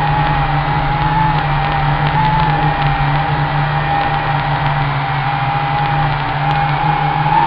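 WLToys V666 quadcopter's motors and propellers whining steadily in flight, picked up by its own onboard camera's microphone; the held tone wavers slightly as the drone manoeuvres.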